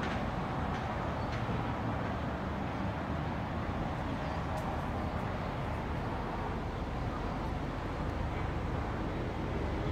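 Steady outdoor noise: wind buffeting the microphone at the bottom end over a distant hum of road traffic far below.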